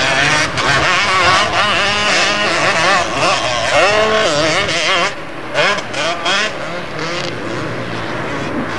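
Motocross motorcycle engines revving, their pitch repeatedly rising and falling with the throttle, somewhat quieter after about five seconds.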